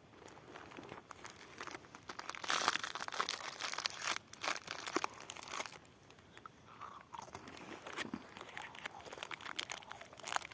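Irregular crunching and crinkling made up of dense rapid crackles, loudest from about two and a half to five seconds in, then lighter and more scattered.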